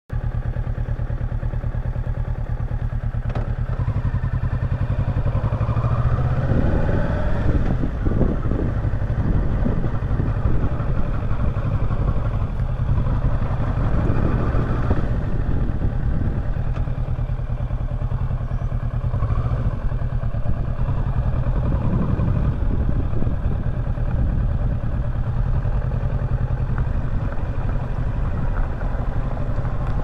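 Kawasaki Versys 650's parallel-twin engine running as the motorcycle is ridden, its pitch rising and falling a few times with the throttle, over a steady rush of wind on the microphone.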